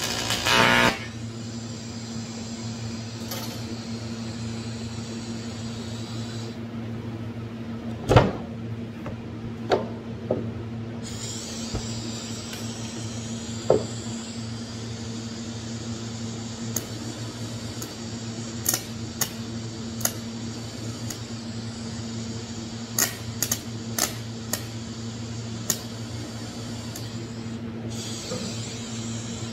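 TIG welder working aluminum on scratch start: a steady electrical hum with a hiss over it, the hiss breaking off for a few seconds near the middle and again near the end. Sharp ticks and clicks are scattered throughout. A louder noise stops within the first second.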